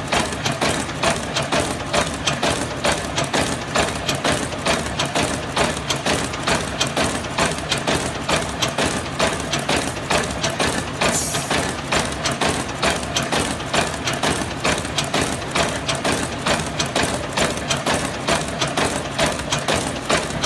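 Normal-twist hexagonal wire mesh (chicken wire) machine running, a steady rhythmic metallic clatter of about two to three strokes a second as it twists the wires into mesh. A brief hiss comes about eleven seconds in.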